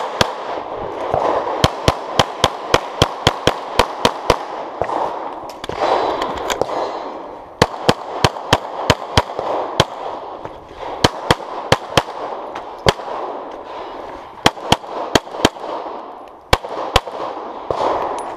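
Pistol gunfire from a competitor shooting a USPSA stage: rapid strings of sharp shots, often two to four a second, broken by short pauses of one to two seconds. The pauses fit movement between shooting positions or a reload.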